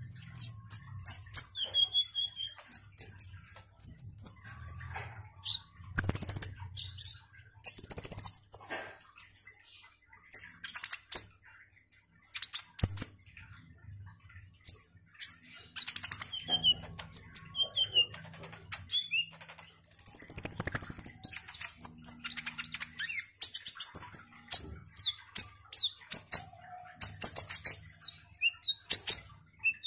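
Male kolibri ninja (sunbird) singing a fast, varied stream of high chirps and twitters, with a short break near the middle.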